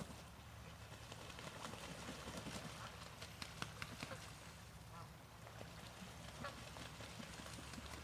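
Canada geese and ducks bathing on a pond: splashing and wing-flapping on the water, with a few short calls.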